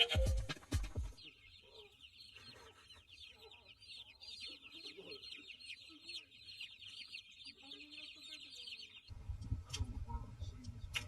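Chickens: a dense, steady chorus of rapid high peeping with scattered lower clucks underneath. It opens after about a second of louder sound with low thumps, and near the end it cuts off abruptly to a low hum with a few sharp ticks.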